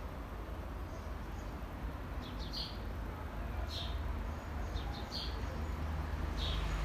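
Birds chirping: short high calls in small clusters, about four times, over a steady low rumble.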